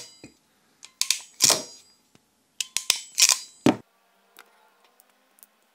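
Hand crimping tool clicking shut as it crimps a Deutsch connector pin onto a wire: a group of sharp metallic clicks about a second in, then a quicker run of clicks from about two and a half to four seconds in. After that come only faint handling ticks.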